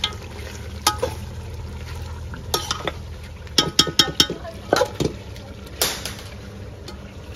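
A metal spatula stirring chicken in masala inside a metal cooking pot, knocking and scraping against the pot's side in irregular clinks, with several in quick succession around the middle.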